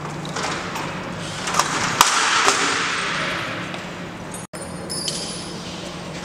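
Aluminium-alloy roller shutter door being pulled down by hand, its slats rattling as the curtain runs down the guide rails, with a few sharp knocks about two seconds in.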